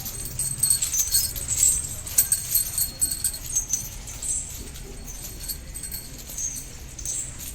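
Metal chains and small bells on a captive elephant jingling and clinking in quick, irregular strikes that thin out after about four seconds, over a steady low rumble.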